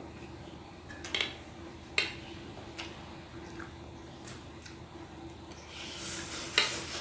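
Cutlery clinking against a plate of fried instant noodles as eating begins: several sharp, separate clinks, then a short hissing scrape near the end. A faint steady hum sits underneath.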